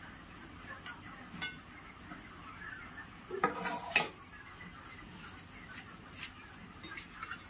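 A metal spoon or spatula stirring food in a cooking pan, with scattered light clicks and scrapes against the pan. About three and a half seconds in comes a louder clatter of metal on metal with a brief ring.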